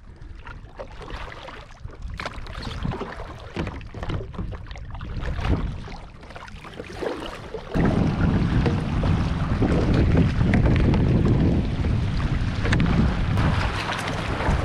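Kayak on a lake: paddle splashes and water lapping at the plastic hull. About halfway through, heavy wind buffeting on the microphone joins in and covers much of the water sound.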